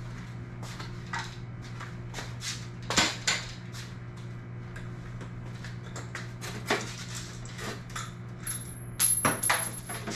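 Light clicks and clattering knocks of plastic PVC couplers and screws being handled and set against an aluminium garage door. The knocks come in scattered strokes, with a louder cluster about three seconds in and again near the end, over a steady low hum.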